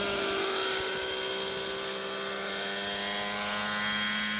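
Thunder Tiger Raptor 90 radio-controlled helicopter in flight: its two-stroke nitro glow engine and rotors run steadily, the pitch easing down slightly in the first second.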